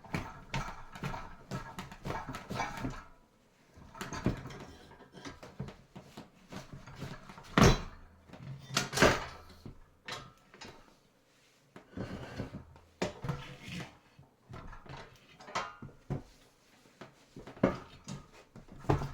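Manual tire changer's bead breaker being worked against a car tire to push the bead off the rim: irregular clunks and knocks, the two loudest about eight and nine seconds in.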